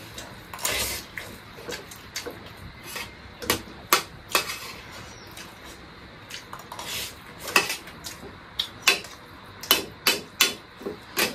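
A metal spoon clinking and scraping against a steel plate of rice during a meal, in short irregular clinks with a longer scrape about a second in.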